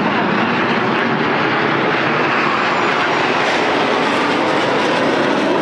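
Steady, loud jet noise from Frecce Tricolori Aermacchi MB-339 jets flying past in formation.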